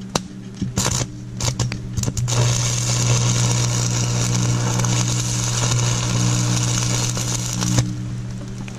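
Electric arc welding on steel: the arc stutters and restarts a few times, then settles into a steady crackling hiss for about five seconds before cutting off suddenly near the end, over a steady low hum.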